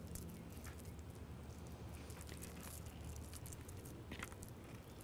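Hands squeezing and pulling apart raw ground turkey mixed with breadcrumbs and blueberries: faint wet squishing and small clicks, over a low steady hum.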